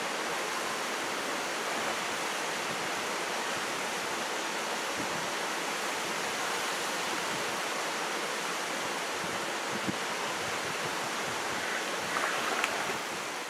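Steady rushing of a rocky salmon stream pouring over small cascades, with a brief louder patch near the end.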